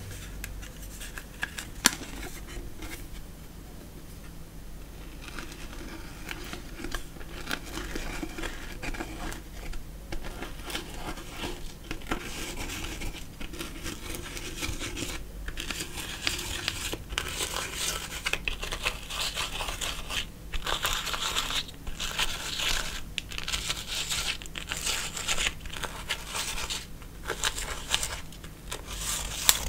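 Hands squishing and stretching slime: irregular crackling and squishing that grows busier and louder in the second half, with a sharp click about two seconds in.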